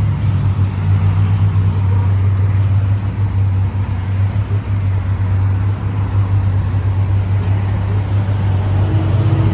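Motor vehicle engine running, a steady low rumble with a fast flutter.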